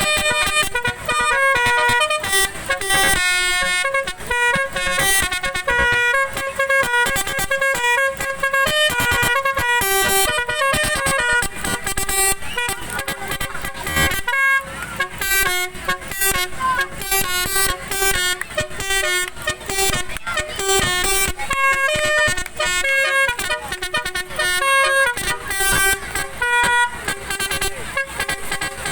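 Telolet multi-tone horn on an odong-odong ride vehicle playing a fast, continuous sequence of horn notes like a tune, with a short break about halfway through.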